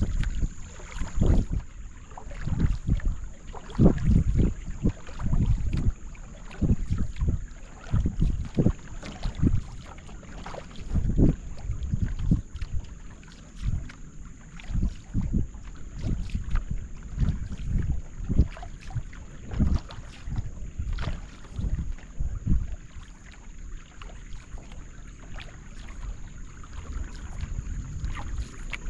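Solo canoe paddle strokes in the water, coming in a loose rhythm of splashes and dips, about one a second, with low rumbling buffets of wind on the microphone. A faint steady high-pitched hiss runs underneath.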